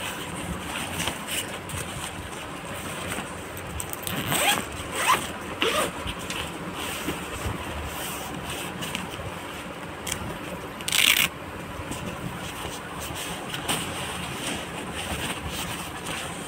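Nylon fabric of a new bag rustling and crinkling as it is handled, with zippers being worked open and shut; one louder, short zipping rasp comes about two-thirds of the way through.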